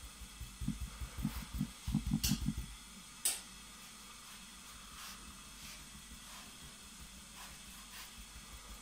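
Brush dabbing paint onto a canvas: a run of soft, low thumps over the first few seconds, then one sharp click, over a steady faint hiss.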